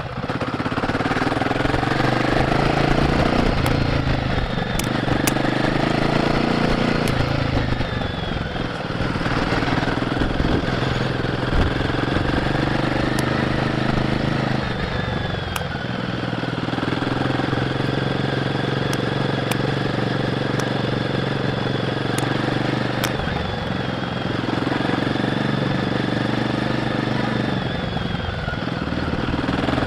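Royal Enfield Guerrilla 450's single-cylinder engine through its stock exhaust while riding, the note rising and falling with the throttle and dipping briefly about four times, as at gear changes or throttle lifts.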